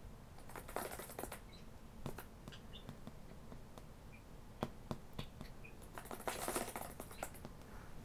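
Budgies scratching and tapping about on hard surfaces: a burst of scratching about half a second to a second in, scattered sharp taps, and a longer scratchy burst around six to seven seconds in, with a few very short, faint chirps.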